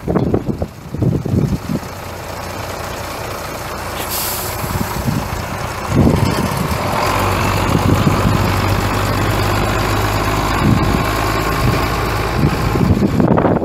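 International DT466 six-cylinder turbo diesel running steadily, with gusts of wind on the microphone at first. A brief high hiss comes about four seconds in, and the engine sound grows louder about six seconds in.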